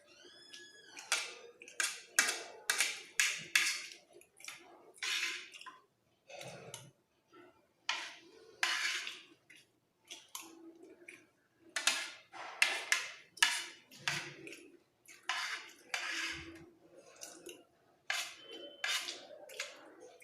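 Close-up eating sounds: a spoon scraping and clinking on a plate and mouthfuls of fried rice being chewed, in a string of short irregular bursts. There is a brief ringing tone about half a second in.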